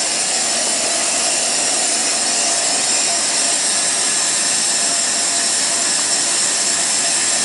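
Steady hiss of the gas burner flame heating a hot salt bluing tank.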